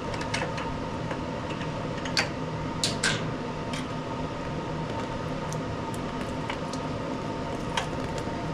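A steady mechanical hum runs under a few sharp clicks and taps of small metal parts being handled, loudest about two and three seconds in, as the fuel line is worked off the pressure washer.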